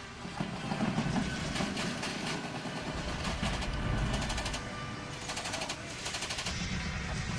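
Rapid automatic gunfire in several bursts with short breaks, under music.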